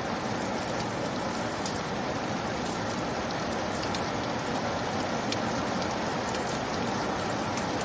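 Steady rain: an even hiss of falling rain with scattered sharp ticks of single drops.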